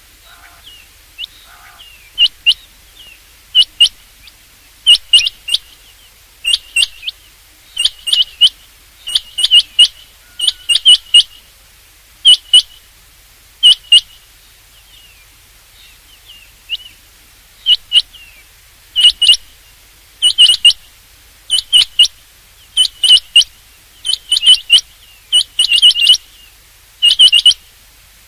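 Rain quail calling: sharp high notes in quick runs of two to five, a run about every second, faint at first and loud and regular from about two seconds in.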